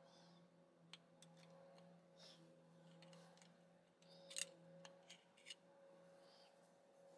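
Faint clicks, taps and scrapes from handling a metal drill gear housing while a brush works grease inside it, with a few sharper clicks about four seconds in, over a steady low hum.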